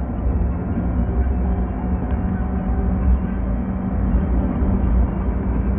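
Steady low drone of a car driving on asphalt, engine and tyre noise heard from inside the cabin through a dashcam microphone, with a constant low hum.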